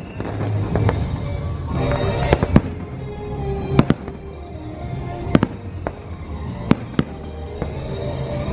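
Fireworks going off in sharp bangs and cracks, about a dozen of them at irregular intervals of one to two a second, over the fireworks show's music soundtrack.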